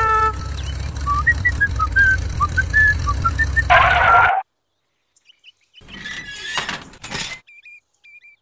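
Low, steady engine rumble of a small tractor, with short high whistled chirps scattered over it and a brief loud tone just before it cuts off abruptly about four seconds in. After a pause come a few seconds of quieter scraping and clicks.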